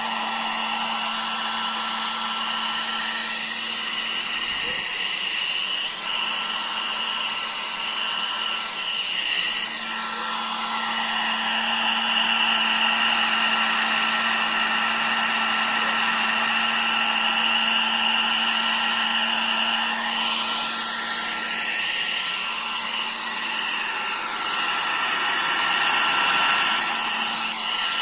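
Nova foldable 1000 W hair dryer running continuously: a steady fan-motor whir and rush of air over a low hum, swelling louder from about ten seconds in. Its motor has been freshly oiled, and it now runs with its normal sound, free of its earlier noise.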